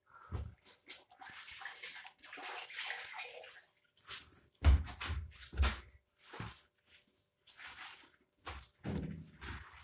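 Young puppies suckling milk from a plastic feeding bottle's rubber nipple: irregular wet sucking, slurping and smacking, with a few louder bumps as they jostle at the bottle.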